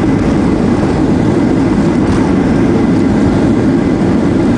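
Steady, loud rumble of a Boeing 737-700 heard from inside the passenger cabin: engine and airframe noise with no change in level.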